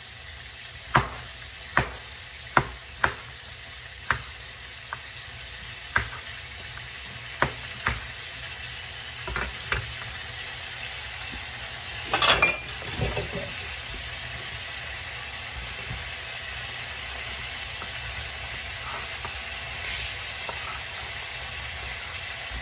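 Tomato and onion frying in oil in a pan, sizzling steadily and growing slightly louder. Sharp single knocks come about once a second in the first half, with a louder clatter about twelve seconds in.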